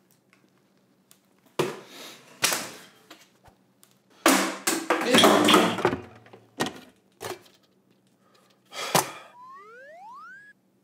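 Empty plastic water bottle being handled: a string of crinkles, knocks and clicks, the longest and loudest about halfway through. Near the end a short rising whistle-like tone glides upward.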